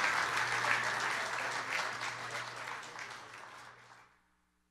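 Audience applauding a live band at the end of a song, the clapping fading out about four seconds in.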